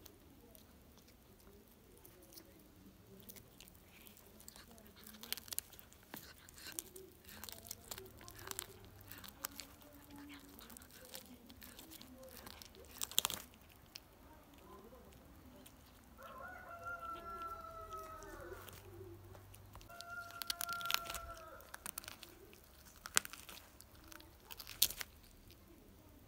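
Tabby cat chewing and tearing at a dead pigeon, with sharp crunches scattered through. A chicken calls twice in the background in the second half, the first call longer and falling in pitch.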